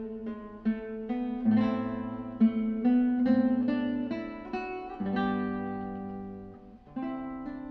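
Background music: a guitar picking a melody over held notes, each note sharply plucked and fading.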